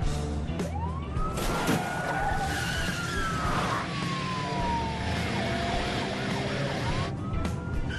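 Police car siren wailing, rising in pitch about a second in, falling slowly, then rising again near the end, with a car's tyres screeching.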